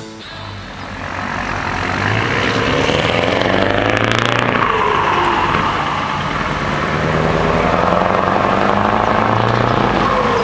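Scania 164 580 V8 truck on open exhaust pipes accelerating, its engine note climbing and dropping back at a gear change about four seconds in and again near the end, over road noise.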